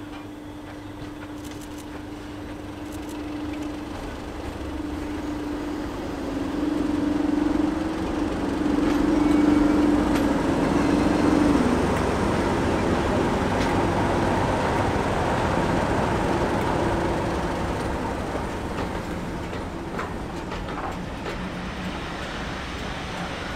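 English Electric Class 37 diesel locomotive approaching and passing at low speed, the steady drone of its V12 engine growing louder until the cab passes about halfway through. Its coaches then roll past with a steady rumble that fades towards the end.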